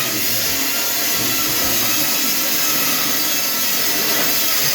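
Power tool running steadily on the sheet-metal casing of a washing machine: a loud, even noise without a break.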